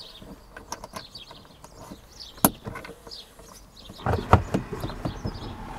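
Range Rover L322 interior rear-view mirror being slid and clicked onto its windscreen mount: one sharp click about two and a half seconds in, then a quick cluster of clicks and knocks around four seconds in as it seats firmly.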